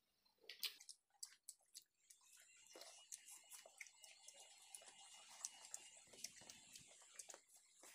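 Faint close-up eating sounds: chewing with many small wet mouth clicks, over a faint hiss.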